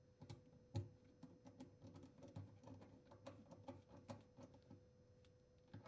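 Faint, irregular clicks and taps of hands fitting a dishwasher drain hose onto the sink drain connection, over a faint steady hum.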